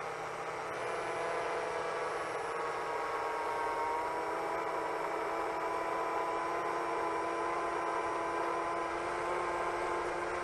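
7-inch FPV quadcopter's motors and propellers whirring in flight: a steady, whining hum of several tones that shifts in pitch about four seconds in as the throttle changes.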